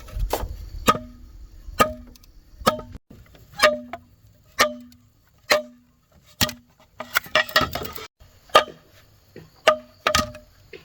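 Blows struck on hollow bamboo at about one a second, each knock ringing briefly with a hollow pitched tone. A quick flurry of smaller knocks comes about two-thirds of the way through.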